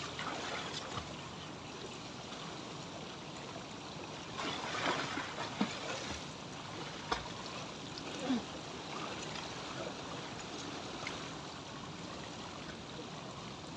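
Swimming-pool water splashing and lapping close to the microphone as a swimmer goes under and kicks, with a louder stretch of splashing about four to five seconds in.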